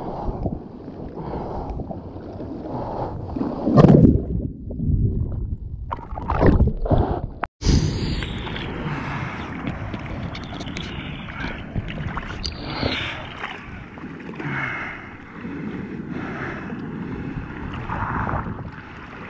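Water sloshing and splashing right at a camera held low on a bodyboard in the surf, with a few loud splashes in the first half. The sound cuts out for an instant about seven and a half seconds in, then the water wash carries on steadier, with smaller splashes.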